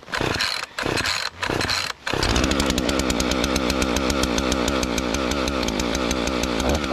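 Husqvarna 445 two-stroke chainsaw being pull-started cold on choke, with a few short broken stretches of noise, then running steadily from about two seconds in.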